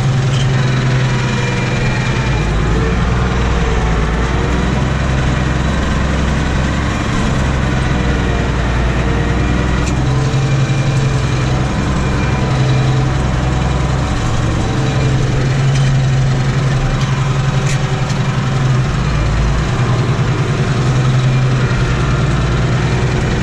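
Tractor engine running hard under load while pulling a plough, heard from inside the cab: a loud, steady drone that swells slightly now and then.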